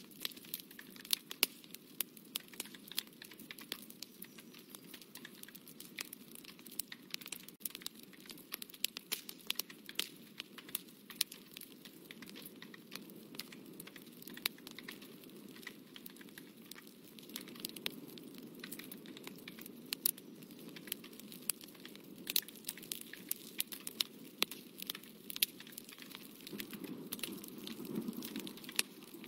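Paper being handled under the hands, with irregular small crackles and clicks over a low rustle that swells briefly near the end.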